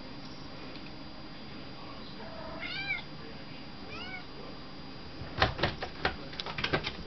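A kitten meows twice, two short calls that rise and fall in pitch, a little over a second apart. Near the end comes a quick run of sharp knocks and taps, louder than the meows.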